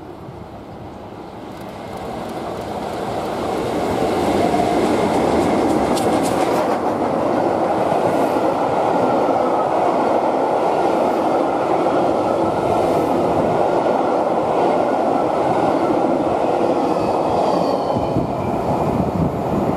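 A Class 47 diesel-hauled passenger train approaching and running through at speed, growing louder over the first few seconds. Then a long rake of coaches rolls past with a steady rumble of wheels on rail, a few sharp clicks about six seconds in, and faint high wheel-on-rail ringing near the end.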